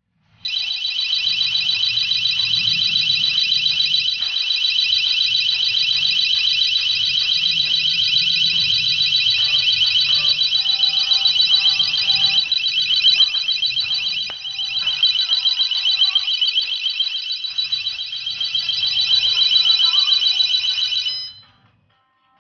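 Auto-dial home alarm's built-in siren sounding: a loud, high-pitched, rapidly warbling electronic tone that starts about half a second in and cuts off suddenly near the end.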